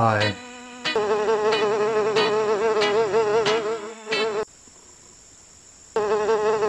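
A fly buzzing, a steady drone whose pitch wavers slightly, in two stretches: it starts about a second in, breaks off for about a second and a half after the middle, then resumes.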